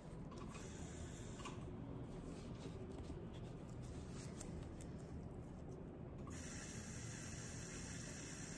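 Faint rustling and rubbing as a gloved hand wipes tattooed skin with a paper towel. About six seconds in, a steady faint hiss starts abruptly.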